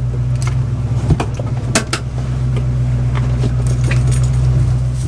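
A vehicle's engine running at idle, a steady low hum, with scattered clicks and light metallic rattles over it.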